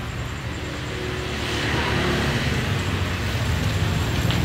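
Road traffic noise, a steady rumble that grows louder toward the end as a vehicle approaches.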